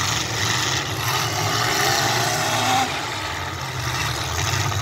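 Engines of several demolition derby cars running and revving together, a loud, steady mechanical din.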